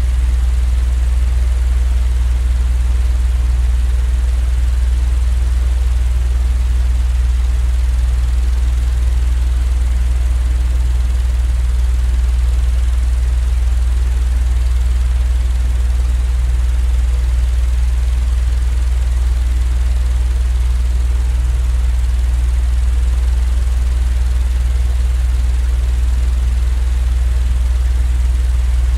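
A steady, unchanging low mechanical hum with a faint hiss above it.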